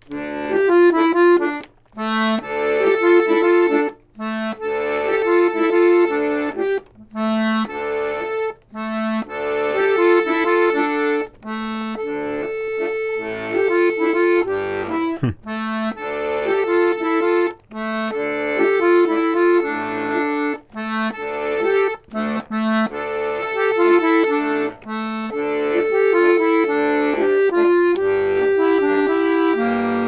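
Button accordion improvising: short melodic phrases over bass notes, each a couple of seconds long and broken by brief pauses, with a similar figure played again and again with small changes, as if searching for an idea.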